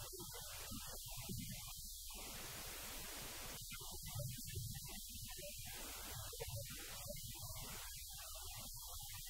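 Steady electrical mains hum with hiss. Underneath it a man's voice comes through faintly in irregular low pulses, too garbled to make out words.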